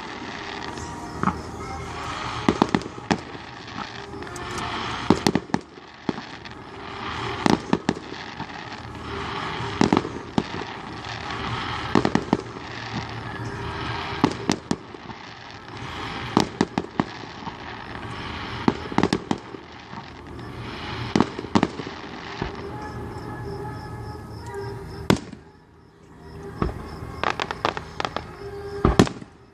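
Fireworks display: a steady run of sharp bangs and crackling bursts, many in quick clusters, with a short lull about 25 seconds in before more loud reports near the end.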